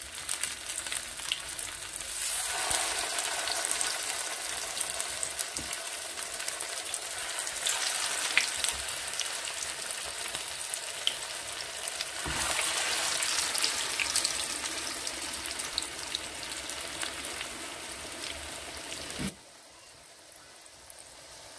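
Potato patties (aloo tikki) shallow-frying in oil in a nonstick pan: a steady sizzle with scattered crackles and pops. It grows louder in two steps, about two seconds in and again about twelve seconds in, then drops off sharply near the end.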